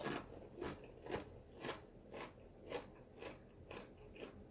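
Close-up crunching of tortilla chips being chewed, dipped in nacho cheese: a run of crisp crunches about two a second.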